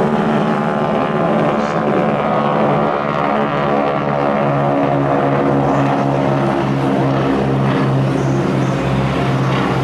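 Boeing Stearman biplane's radial engine and propeller running at display power as the plane flies past; the engine note drops slightly in pitch in the second half as it passes.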